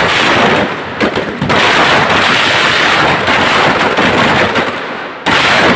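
Firecrackers packed inside a burning Ravana effigy going off in a dense, rapid string of loud bangs and crackles, breaking off abruptly and starting again a few times.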